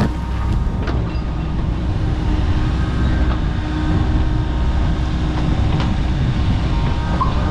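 Kobelco SK85 MSR excavator's diesel engine running steadily under load, with a steady whine over the low hum and a few sharp cracks and knocks as it works.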